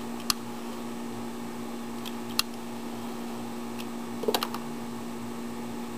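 Scattered sharp clicks from a hand-held utility lighter being worked to heat vinyl tubing, a single click near the start, another a little past two seconds in, and a quick cluster of clicks about four seconds in, over a steady low hum.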